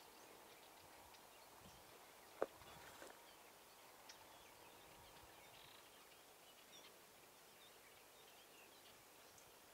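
Near silence: faint outdoor ambience with a few faint, high bird chirps, and one sharp click about two and a half seconds in.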